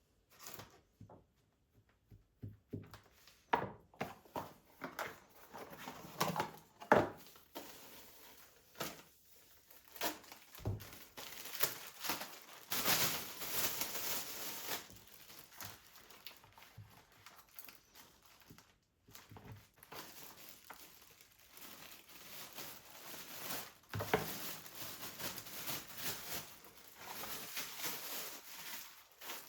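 Plastic packaging crinkling and rustling as items are handled, with scattered clicks and knocks of things being picked up and set down.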